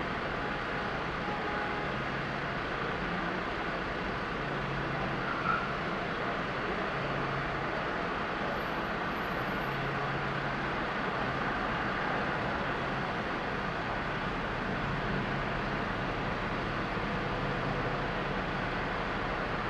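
Steady idling traffic noise from vehicles stopped at a red light, with a low engine hum that comes and goes, likely from the garbage truck idling close alongside. A single brief tick sounds about five and a half seconds in.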